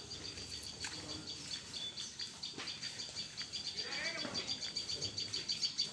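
Birds chirping: a rapid high chirping that repeats steadily and grows louder in the second half.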